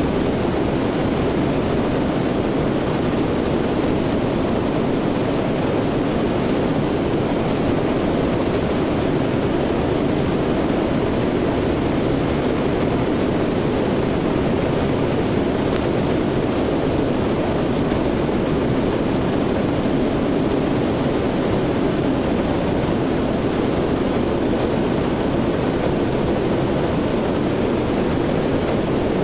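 Steady in-flight noise of a Lockheed C-130 Hercules heard from on board: its four turboprop engines and propellers running, mixed with a rush of air, unchanging throughout.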